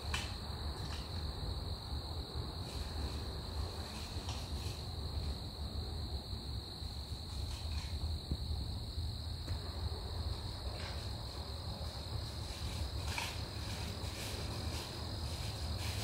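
Steady chorus of crickets over a low rumble, with a few faint scattered knocks from two whitetail bucks fighting, their antlers clashing in the distance.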